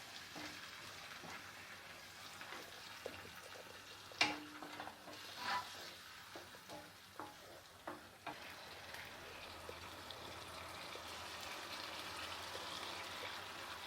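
Freshly poured tomato paste sizzling in hot oil with sautéed onion and ginger-garlic paste, with a spoon stirring and knocking against the pan several times around the middle. A steady sizzle builds toward the end as the paste starts to cook.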